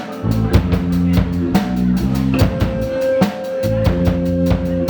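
Live rock band playing an instrumental passage: a drum kit keeping a steady beat with bass drum and many quick cymbal strokes under sustained low notes, with a long held higher note entering about halfway through.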